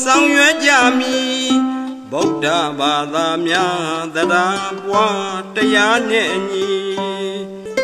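Burmese arched harp (saung gauk) plucked in a classical Burmese song, with a man's voice singing long ornamented, wavering phrases over the harp notes.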